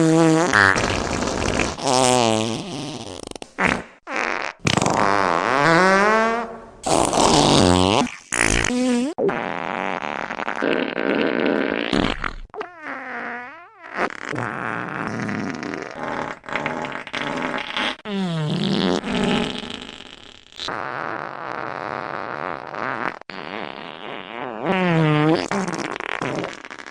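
Fart sound effects played one after another, each a long, wavering blurt whose pitch wobbles and slides up and down, with brief gaps between some of them.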